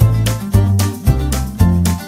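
Instrumental background music with a steady beat and a bass line.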